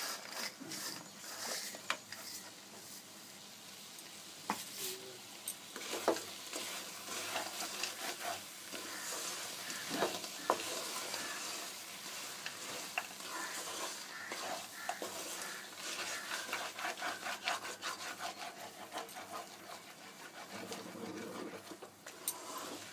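A spoon stirring and scraping raw mango pieces with jaggery in a cooking pan over low heat, with a soft sizzle and repeated scrapes and knocks against the pan.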